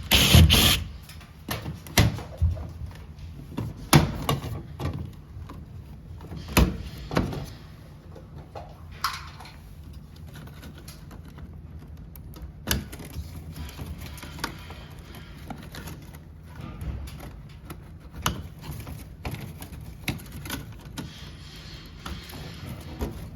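Irregular knocks and clicks of parts being handled while a Daikin ceiling-cassette air conditioner is taken apart, the heaviest in the first few seconds and sparser later.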